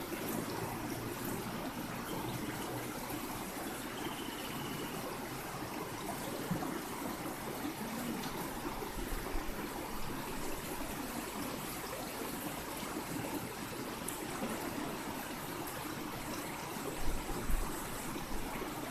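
River water running steadily over the streambed, a continuous even rushing and trickling.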